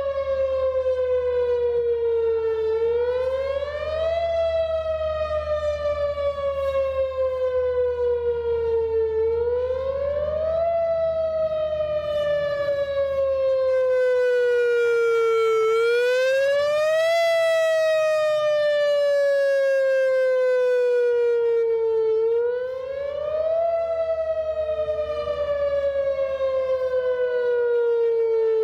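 Outdoor civil-defense warning siren sounding in a test. Its pitch climbs quickly, then slides slowly down, and the cycle repeats about every six and a half seconds.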